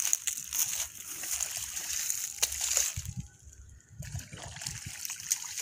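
Shallow muddy water in a flooded rice paddy splashing and sloshing in irregular bursts as it is worked with a hand tool, quieter for a moment about three seconds in.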